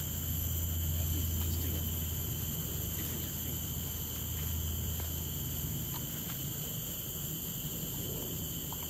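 Steady, unbroken drone of forest insects, with a low steady rumble underneath that fades about seven seconds in.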